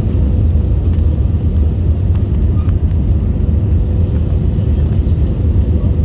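Airbus A320 cabin noise: a steady low rumble of engines and airflow, with a faint steady hum running through it.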